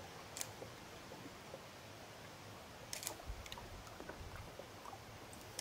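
Quiet steady hiss with a few sharp clicks, one about half a second in and another near three seconds in, and soft low bumps just after.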